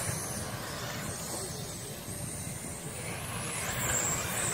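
Radio-controlled 410 sprint cars racing around a dirt oval, their motors giving a high-pitched whine that rises and falls as they pass, over a steady rush of noise.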